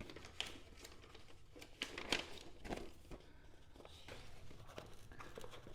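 Faint rustling and scattered light clicks of packaging and small parts being handled as a box is unpacked.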